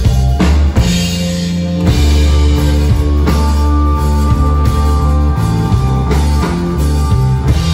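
Psychedelic space-rock/stoner band playing live: sustained guitar notes over heavy bass and a drum kit.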